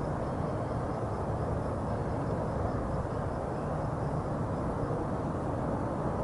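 Steady, low rumbling outdoor background noise, with a faint, rapid high ticking over it.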